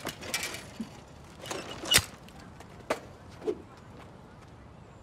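A bicycle being handled as it is taken by the handlebars: a sharp metal clack about two seconds in, then a lighter knock about a second later.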